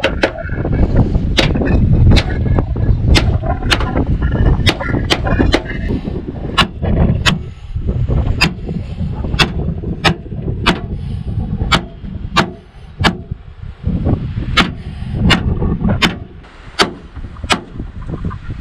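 Repeated stabs of a Cold Steel SR1 tanto folding knife into a car's sheet-metal hood and body panels, a sharp metal impact about every three-quarters of a second. A heavy low rumble runs under the first half.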